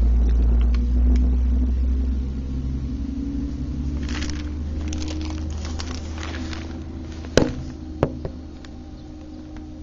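Autocar front-loader garbage truck with a Kann body driving away, its diesel engine rumbling low and fading as it goes. Two sharp knocks near the end.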